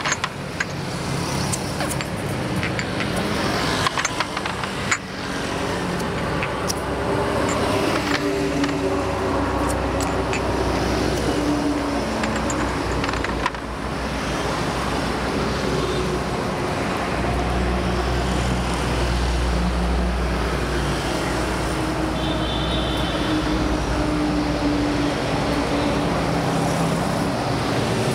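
Steady road traffic from a busy highway: vehicles passing continuously, with low engine hums coming and going and a heavier low rumble passing about two-thirds of the way through. A few sharp clicks sound about four to five seconds in.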